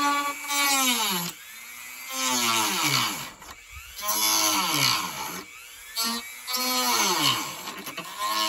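Dremel rotary tool with a small cutoff wheel cutting into a plastic panel. Its high whine drops in pitch as the wheel bogs down in the plastic, then jumps back up when eased off, four or five times about every two seconds.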